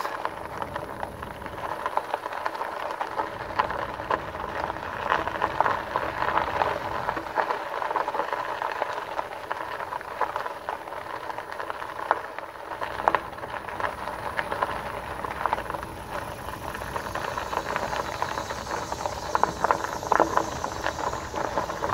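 Cicadas buzzing in the roadside vegetation, with a louder chorus swelling up in the last third. Under them, the RadRover's fat tyres crunch and rattle steadily over a decomposed-granite gravel trail at a slow ride.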